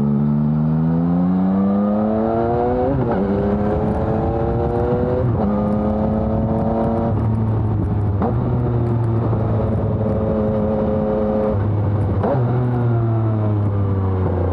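Yamaha XSR 900's three-cylinder engine with a LeoVince Evo One full exhaust system on the move. It climbs in pitch under acceleration, and the pitch drops at upshifts about three and five seconds in. It then runs at a fairly steady pitch with brief breaks, and the pitch falls away near the end.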